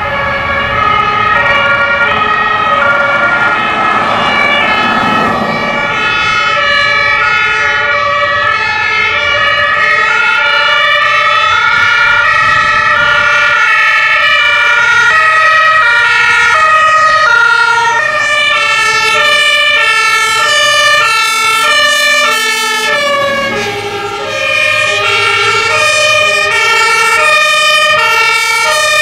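Several fire-service vehicles driving on an emergency run with their two-tone sirens sounding, each stepping back and forth between a high and a low note. The sirens overlap out of step with one another, with engine and road noise beneath them in the first few seconds.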